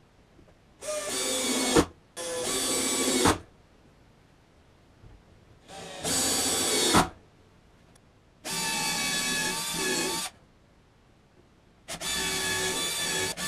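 Electric power tool motor run in short bursts, five times, each lasting one to two seconds and starting and stopping abruptly, with a steady whine under it.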